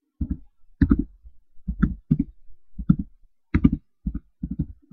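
Computer keyboard keys being typed: about a dozen separate clicks at an uneven pace, many in quick pairs, as a short phrase is entered into a form field.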